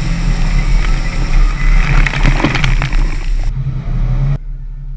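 Off-road 4x4's engine running under load through a mud hole, with mud and water splashing loudest around the middle. A little over four seconds in, the splashing cuts off suddenly, leaving a quieter, steady engine rumble.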